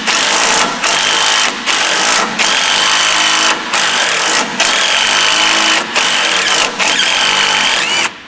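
Cordless power wrench on a socket extension, run in about eight loud bursts with short breaks, working a rust-seized bolt on the transmission cooler line on and off, back and forth, to free it without heat. A steady motor whine sits under several of the bursts.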